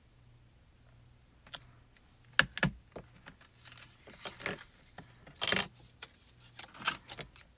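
Clear acrylic stamp block, plastic layering-guide sheets and die-cut paper being handled on a stamp positioning platform: a run of sharp clicks and knocks with a short rustling scrape, after about a second and a half of quiet.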